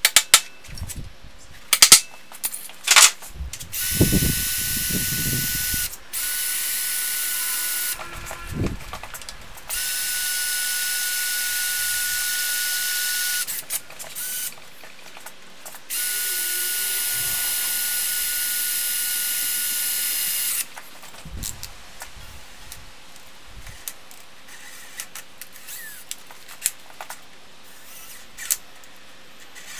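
A few sharp hammer taps on a center punch against steel, then a cordless drill running in four steady spells of a few seconds each, boring into a steel block.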